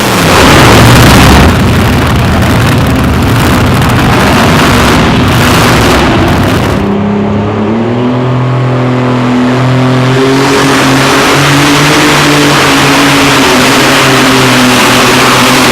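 Competition pulling tractor's engine running at full power, very loud, loudest in the first second and a half. From about seven seconds in it settles into a steadier engine note that rises a little in pitch.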